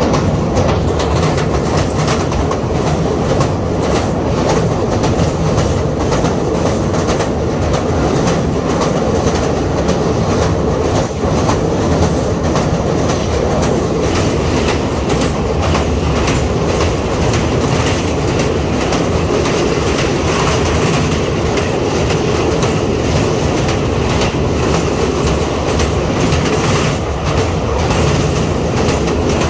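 Express passenger train running over a steel truss railway bridge: a continuous loud rumble and clatter of wheels on the rails, with quick clicks over the rail joints.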